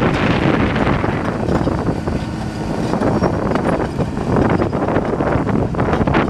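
Caterpillar D5M XL crawler dozer working a dirt pile: its diesel engine running under load while the steel tracks clatter and soil and rocks grind under the blade and tracks.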